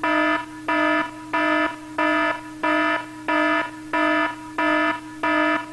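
Electronic error-alarm sound effect: a buzzing tone that pulses on and off about three times every two seconds over a steady lower drone. It flags a film-loading mistake, a missed loop in the threading.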